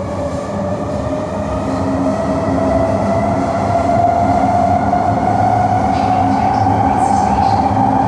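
Kawasaki C151 subway train heard from inside the carriage, its traction motors whining with a slowly rising pitch over a low running rumble as the train picks up speed. It grows louder over the first few seconds, then holds steady.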